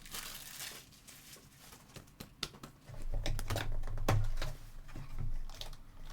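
Trading card packs being opened and the cards handled: plastic and foil wrappers crinkling, with irregular soft clicks and taps of cards.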